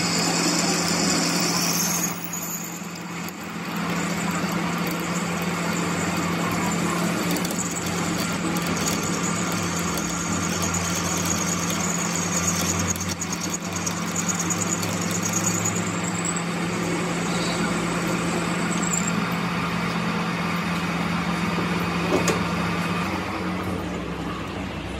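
Metal lathe running with a steady motor hum while a twist drill bores into the end of a spinning metal part; a high whine from the cutting comes and goes, at the start and again about halfway through.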